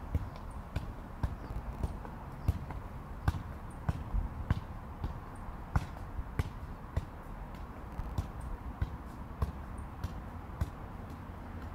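A soccer ball being juggled: a run of uneven dull thuds as it is tapped off the foot and bounces on the asphalt, over a steady low rumble.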